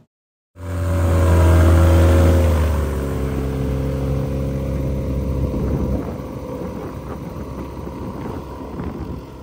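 Viking 130 aircraft engine and propeller running on a Zenith 750 as it taxis. The sound cuts in after a moment of silence, steady at first; its pitch dips slightly about two seconds in, and it turns rougher from about three seconds.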